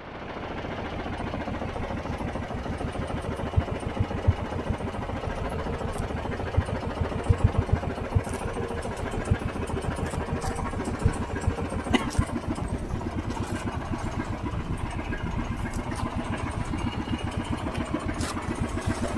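Motor of an outrigger fishing boat running steadily underway, with occasional sharp knocks.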